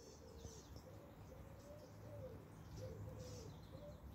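Faint bird calls: a low note repeated about three times a second, with scattered high chirps above it.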